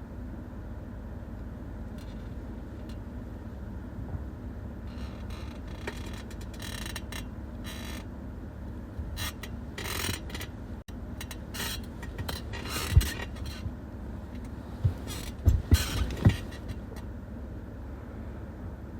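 Rustling of bedding with several soft bumps, as a sleeper shifts about in bed. The bumps come once about 13 seconds in and three times in quick succession a little later, over a steady low hum.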